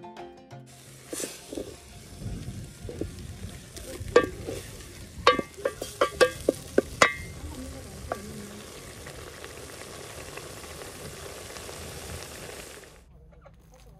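Leafy greens cooking in milk in an aluminium pot, sizzling steadily while a wooden spoon stirs them. Around four to seven seconds in, the spoon knocks sharply against the pot six times. The sizzle cuts off about a second before the end.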